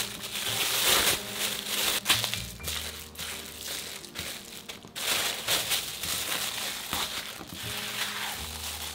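Thin plastic bag crinkling as it is folded around soft cookie dough and pressed flat by hand, in two long bouts with a quieter stretch between, over background music.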